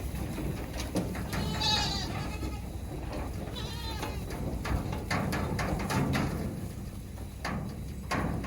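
Kiko goats bleating: two wavering bleats, about a second and a half in and again around three and a half seconds in, over scattered short clicks and knocks.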